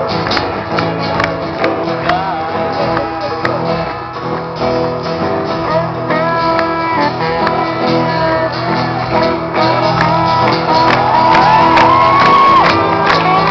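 Live acoustic band music: strummed acoustic guitars and a saxophone melody over a djembe, with voices shouting and singing along.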